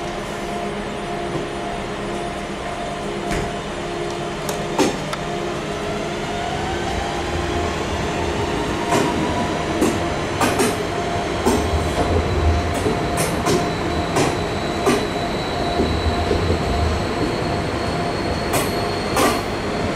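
DB Regio class 440 (Alstom Coradia Continental) electric multiple unit pulling slowly into a station platform: a steady electric whine from its traction equipment over a low rumble. From about halfway on, the wheels click over rail joints and points, and a thin high squeal from the brakes or wheels comes in during the second half.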